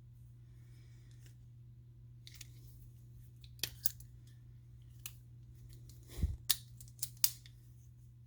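Sharp, short clicks of a Leatherman Free P2 multitool being handled, its implements snapping open and shut. About eight clicks come in the second half, the loudest a cluster near the end, over a faint steady hum.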